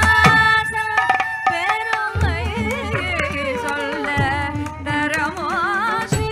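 Live Carnatic music for Bharatanatyam: a melody with wavering, gliding ornaments over a steady low drone, with mridangam drum strokes.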